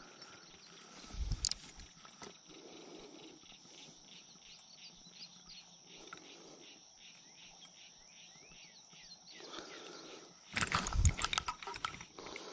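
Steady high-pitched insect drone with many small chirps over quiet riverside ambience. About ten and a half seconds in comes a short cluster of crackling knocks: the fly rod and line being handled close to the camera.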